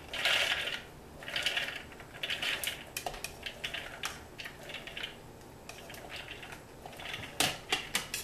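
Soaked chana dal (split Bengal gram) spooned from a ceramic bowl into a food processor's plastic bowl: the wet lentils patter and rattle into the plastic in repeated bursts, scoop after scoop, with a metal spoon scraping and clinking on the bowl and a few sharp clicks near the end.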